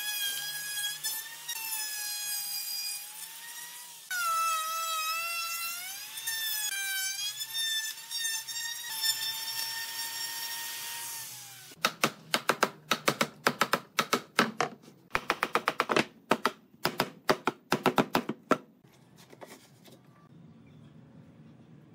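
A high-pitched power tool motor whining for about twelve seconds, its pitch dipping and recovering several times. It is followed by a run of sharp, irregular taps or knocks lasting about six seconds.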